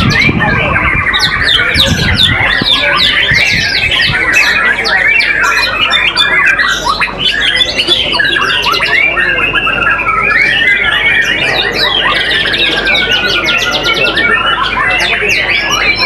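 White-rumped shamas singing without a break: a dense, loud stream of varied whistles, rapid trills and quick chirps, with more than one bird's song overlapping at a time.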